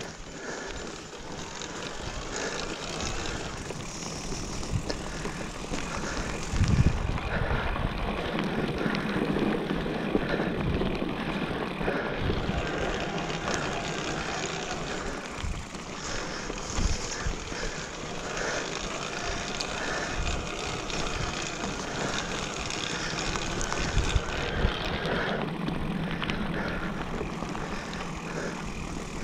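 Mountain bike rolling over a wet, rough dirt trail: a steady rush of tyre and wind noise with rattling, broken by a few hard knocks from bumps, the loudest about a quarter of the way in.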